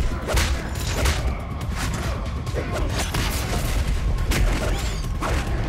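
Dramatic action-score music under a series of sharp hits and booms from a fistfight, coming at irregular intervals.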